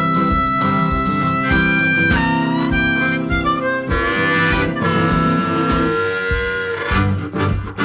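Background music: a harmonica playing held and bending notes over guitar and a steady beat.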